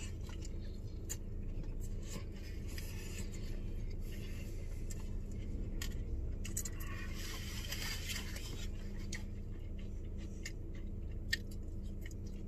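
A person biting into a fish taco and chewing it, with scattered small mouth clicks and a stretch of louder smacking about seven seconds in, over a steady low hum.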